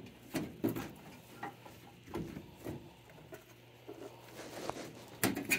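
Scattered light knocks, clicks and scrapes of hands working metal and plastic parts inside a furnace cabinet, irregular, with a small flurry near the end.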